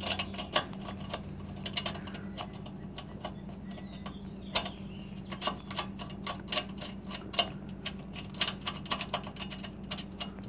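Irregular sharp clicks and small metallic taps as a 10 mm nut is spun off the scooter's ignition coil mounting bolt by hand and the metal bracket is handled, some clicks coming in quick clusters. A steady low hum runs underneath.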